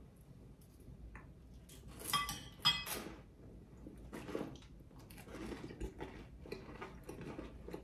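Metal spoons clinking and scraping against ceramic plates while eating, with a few sharp ringing clinks about two to three seconds in, then softer taps and scrapes.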